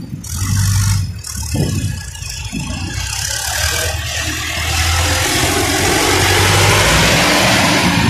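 Front-loader tractor's diesel engine running steadily as it works, with a broad rushing noise that swells over the second half.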